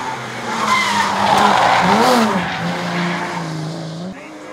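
BMW E30 rally car's engine at full effort on a hillclimb, with a quick rise and fall in pitch about two seconds in, and tyres skidding as the car slides through a corner. The sound drops away suddenly near the end.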